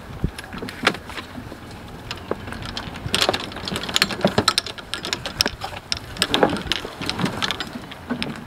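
Golf clubs clattering and clinking against one another as they are shuffled around in a golf bag: an irregular run of sharp clicks and knocks, busiest in the middle.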